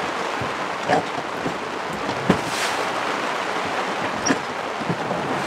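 Driving rain and wind of a squall: a steady hiss with a few sharp taps and knocks scattered through it.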